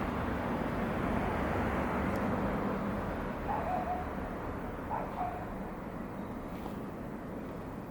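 Steady outdoor background noise with two short, soft animal calls about a second and a half apart, each dipping briefly in pitch and then holding.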